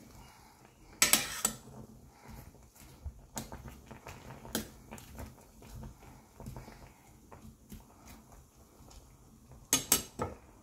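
Metal spoon stirring apple chunks in a stainless steel pot, knocking and clinking against the pot: a few sharp knocks about a second in, single ones scattered through the middle, and a quick cluster near the end.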